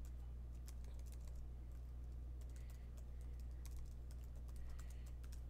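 Typing on a computer keyboard: a run of quick, irregular, faint keystrokes over a steady low hum.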